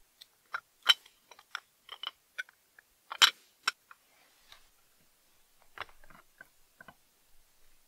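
Sharp clicks and light taps of a glass lens being handled and seated in the painted metal front bezel ring of an antique bicycle lantern. Two louder clicks stand out, about a second in and about three seconds in, with a cluster of softer taps near the end.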